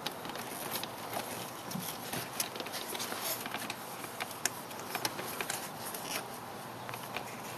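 Irregular small clicks and rustling as hands work plastic cable ties and the plastic magnet housings around a ribbed rubber air intake hose.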